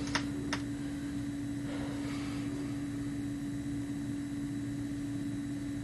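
Steady background hum with one constant tone over a faint hiss, and two faint clicks near the start.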